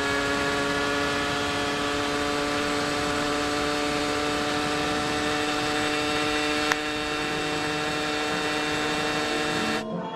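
Suzuki Satria two-stroke single-cylinder motorcycle engine running steadily at high revs in sixth gear while riding, a constant buzzing note over wind rush, with one small click about two-thirds through. It cuts off sharply near the end.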